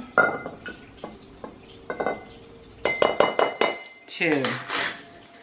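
Glass jar being handled and clinked against kitchen utensils: scattered light clicks, then a quick run of sharp clinks with a ringing tone about three seconds in. A few murmured words follow near the end.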